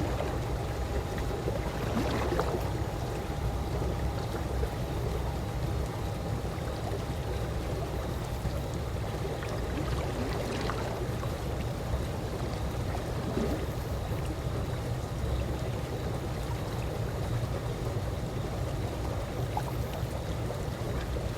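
Calm swimming pool water lapping and trickling steadily, with a low rumble underneath and a few faint splashes.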